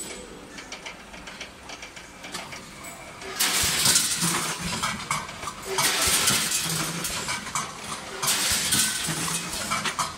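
Vertical form-fill-seal packing machine running with light clicks, then three bursts of metal clattering about two and a half seconds apart as loads of round wire clips drop into the bags being formed.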